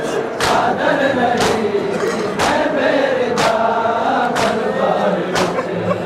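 A large crowd of men chanting a noha in unison, with a sharp collective strike about once a second from hands beating on chests in matam. Six strikes in all, keeping an even beat under the chant.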